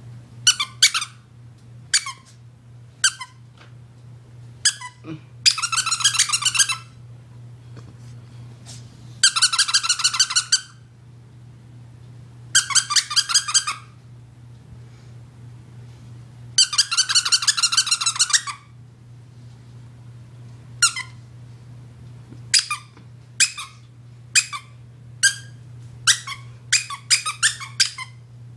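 Rubber squeaky dog toy being squeezed again and again: many short, sharp squeaks that drop in pitch, and four longer squeaks held for about a second and a half each, with a fast run of short squeaks near the end.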